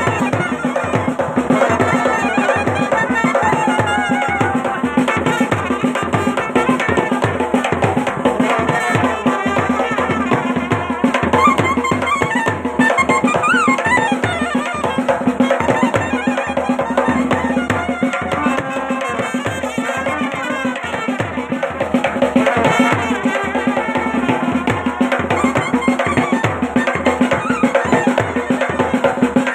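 Himachali folk band music: rapid, driving drumming under a wind-instrument melody with a steady droning note held beneath it.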